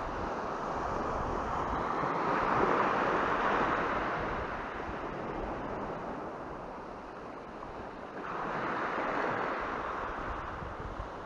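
Small waves washing up and back on a pebbly beach, the surf swelling about two seconds in and again near the end.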